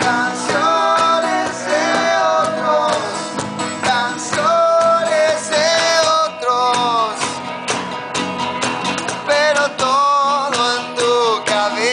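Rock band playing live: guitars, bass and drums, with a lead melody line that bends and slides in pitch over the steady beat.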